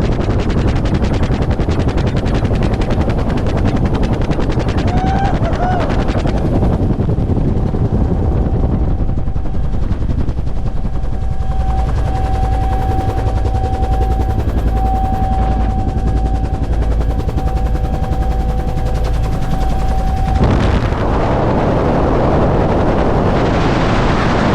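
Bell UH-1 Huey helicopter running: the two-blade main rotor beating in fast, even pulses over the turbine's steady whine. About 20 seconds in, a louder rushing hiss swells up over the beat.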